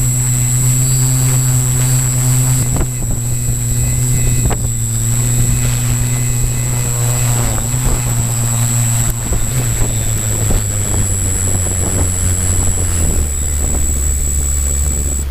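Zion EX700 multicopter's electric motors and propellers humming steadily, heard up close from on board, with a thin high whine above. The hum steps down in pitch about nine and thirteen seconds in as the motors are throttled back with the craft on the ground after landing.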